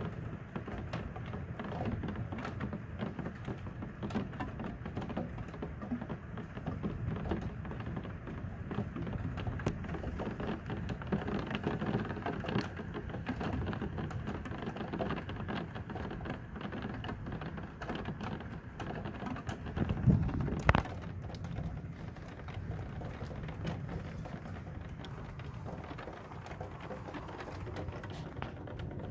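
Heavy rain pattering steadily with many individual drops hitting a surface. About two-thirds of the way in, a short, sharp, loud crack of thunder from the storm overhead.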